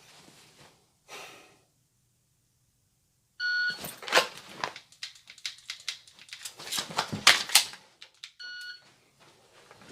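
A shot timer's short start beep about three seconds in, followed by a quick run of clicks, knocks and clothing rustle as a Glock pistol is drawn from its holster and dry-fired at several targets, with a magazine reload. A second identical short beep follows near the end.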